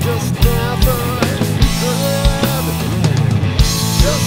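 Heavy rock music: electric guitar playing a wavering, bending lead line over sustained bass and drums, with repeated kick drum hits.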